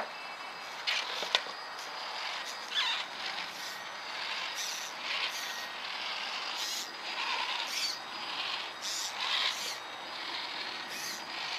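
Small electric RC rock-crawler's drive motor and steering servos whirring in short, irregular bursts as it drives and steers, over a faint steady high-pitched whine.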